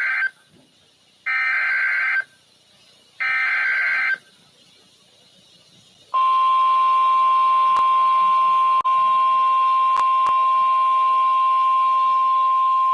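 NOAA Weather Radio EAS alert header: three buzzy one-second bursts of SAME digital data, then about two seconds later the steady single-pitch 1050 Hz warning alarm tone, which holds on with a few faint clicks. The sequence announces a new warning, here a severe thunderstorm warning.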